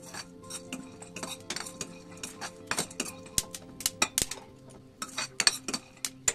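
A metal spoon scrapes and clinks against a stainless steel kadai while stirring dry-roasting peanuts and melon seeds. Many sharp, irregular clicks and ticks come from the spoon and the seeds striking the hot pan, with the roasting peanuts crackling.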